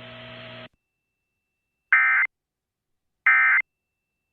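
EAS end-of-message (NNNN) data bursts: two short, identical chirps of two-tone digital data about 1.3 seconds apart, marking the end of the NOAA Weather Radio alert. A faint hum from the radio audio cuts off under a second in.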